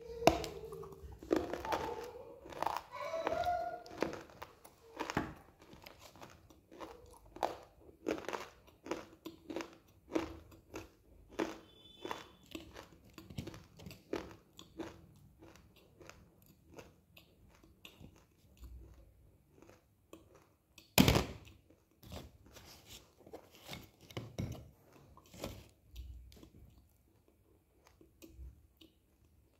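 Close-up mouth sounds of biting and chewing dry white chalk-like clay: irregular crisp crunches and crumbly chewing, busiest in the first few seconds, with one loud crunching bite about two-thirds of the way through.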